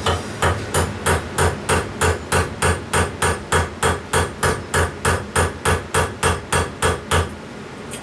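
Hammer striking a metal part in a steady rhythm, about three and a half blows a second, stopping a little after seven seconds in: a bent part of a Yamaha XS650 starter drive being beaten back into round.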